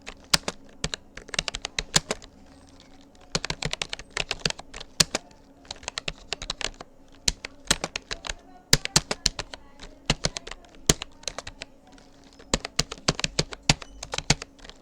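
Typing on a Rapoo computer keyboard: quick runs of key clicks, broken by a few brief pauses.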